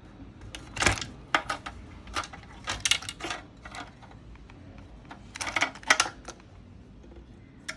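Clusters of sharp clicks and clacks from small plastic and metal parts being handled as the main board of a radio cassette recorder is worked loose from its cabinet. The clicks come in three bursts: about a second in, around three seconds in, and around six seconds in.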